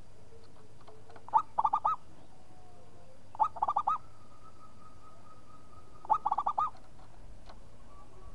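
Zebra dove (perkutut) cooing in three phrases about two and a half seconds apart. Each phrase is a sharp opening note followed by a quick run of three or four rolling coos.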